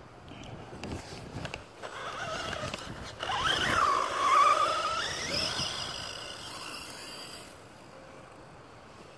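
Brushless electric motor of a Redcat Blackout XTE RC truck whining as it accelerates across grass. The pitch climbs sharply about three seconds in, dips, climbs again, then fades as the truck moves away.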